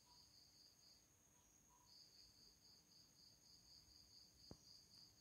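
Near silence with faint insect chirping, an even pulse of about four chirps a second that pauses for about a second shortly after the start and then resumes. A single soft click near the end.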